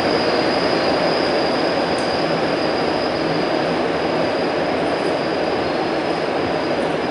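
Montreal Metro MR-73 rubber-tyred train running and slowing as it pulls into a station, with a steady dense rumble and a thin high whine that fades near the end.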